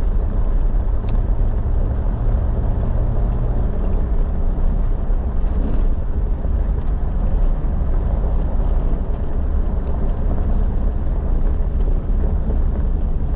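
Jeep Wrangler TJ driving along a gravel road: a steady low rumble of engine and tyres on the dirt, with a low hum that fades into the rumble about four seconds in.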